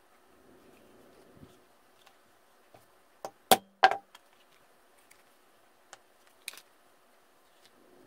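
A few sharp knocks about three and a half seconds in, two of them loud, as metal snap-setting tools for spring snaps knock on a metal anvil block. Several lighter clicks and taps follow later on.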